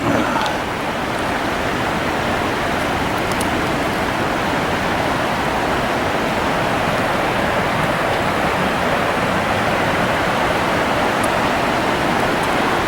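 Swift river water rushing in a steady rush, building over the first second and then holding level.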